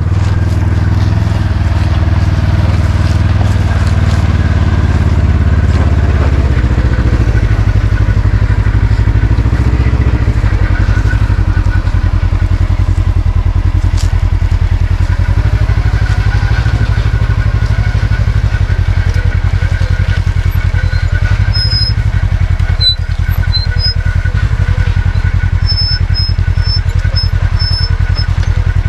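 Polaris side-by-side UTV engine running at low speed as the machine creeps down a steep dirt trail, a steady low pulse throughout.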